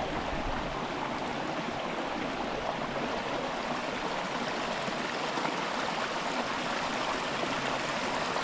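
A small creek running over rocks, a steady rushing of water at an even level.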